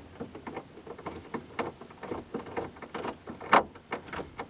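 Scattered light clicks and taps of hands working at a truck's plastic dashboard, starting a screw into the instrument cluster, with one sharper click about three and a half seconds in.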